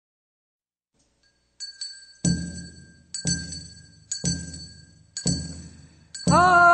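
A hand bell rung in an even beat about once a second, each stroke with a dull low thud under its ringing. Just before the end a solo voice begins singing the funeral bier song (sangyeo-sori) of Korea's Gyeongsang region.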